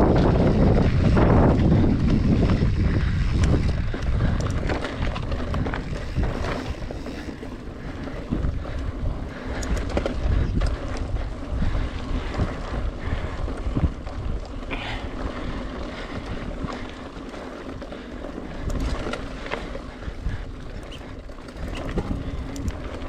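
Wind buffeting the microphone, loudest for the first few seconds, then settling into a quieter, uneven rush with occasional gusts.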